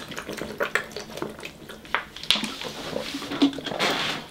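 A person drinking from a thin plastic water bottle: swallowing, with the plastic crackling in irregular clicks.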